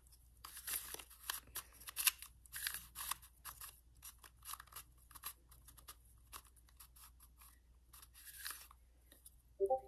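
Plastic clicking and clacking of a non-magnetic YuXin Little Magic Square-1 puzzle being turned by hand, in quick runs of turns. The clicks come thick for the first few seconds, thin out, and bunch up again near the end.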